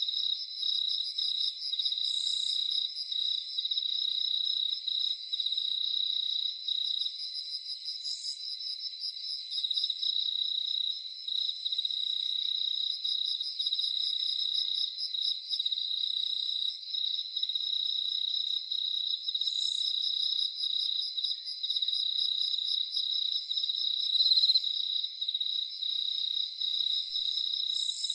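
Crickets chirping in a steady, fast-pulsing chorus, with a short higher buzz coming back every several seconds.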